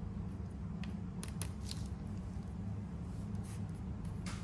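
Light, scattered rustles and ticks of paper stickers being handled and placed on a journal page, over a steady low hum.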